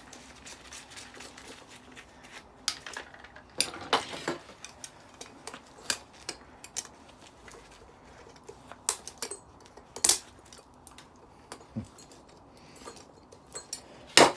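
Irregular clicks and clinks of small metal parts being handled as a stainless steel and aluminium decking light is taken apart by hand. Near the end comes a sharp snap as a part, squeezed too hard, breaks.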